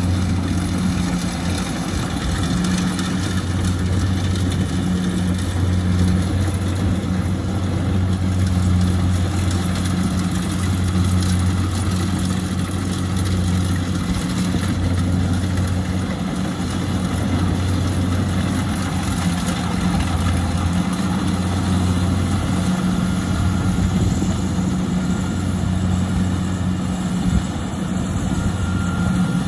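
Rice combine harvester's engine running steadily at working speed, a continuous low drone with a constant mechanical rush over it.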